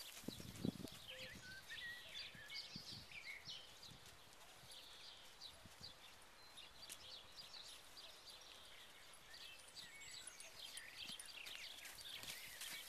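Horse's hooves thudding faintly on a sand arena as it circles on the lunge, the loudest thud about half a second in, with many faint high chirps over it.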